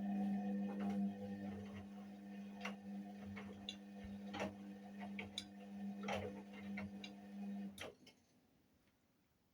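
Indesit WIUL83 washing machine's drum motor running with a steady hum and scattered clicks and knocks, then stopping about eight seconds in: one turn of the drum during the 30°C daily wash.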